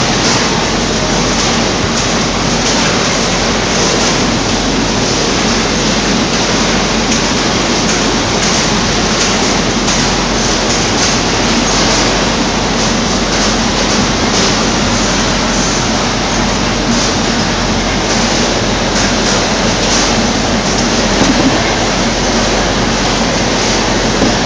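Citrus packing-line machinery running: the conveyors and rollers of an orange grading machine make a loud, steady, unbroken mechanical noise with a low hum in it.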